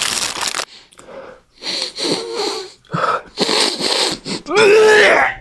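A person's voice making breathy, noisy vocal sounds in four short bursts, the last one with a faint voiced pitch.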